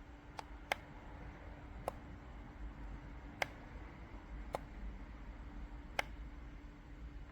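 Sharp single clicks, six of them at uneven gaps of about a second, over a steady low hum.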